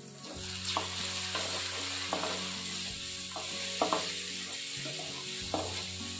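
Chopped vegetables sizzling in hot oil in an aluminium kadai while a wooden spatula stirs them, with a few light knocks and scrapes of the spatula against the pan.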